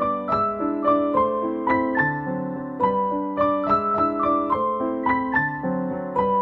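Background keyboard music: a gentle, steady run of single notes, about three a second.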